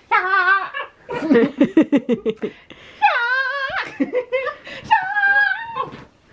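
A person laughing: a run of quick rhythmic giggles and several long, high-pitched, wavering squeals.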